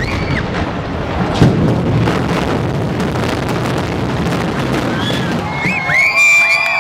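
Low rumble of a building collapsing in a demolition implosion, with a sharp crack about a second and a half in. Near the end, spectators break into cheering and whistling.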